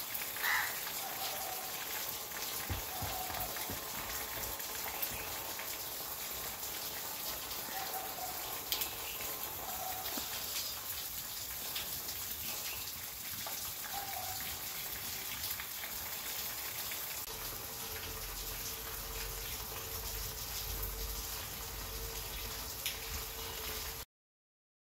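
Evening outdoor ambience: a steady high hiss with fine ticking, and scattered short bird calls, a few of them in the first half. A low rumble joins in the last few seconds before the sound cuts off suddenly near the end.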